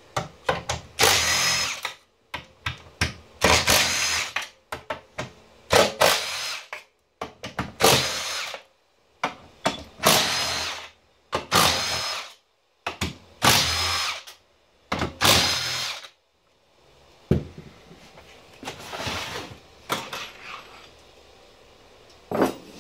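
Cordless power driver running in repeated bursts of about a second each, backing out the long bolts that hold a Honda Civic Hybrid battery's module frame together, with a steady high motor whine in each burst. After the last burst, softer clicks and rattling of loose metal bolts being handled.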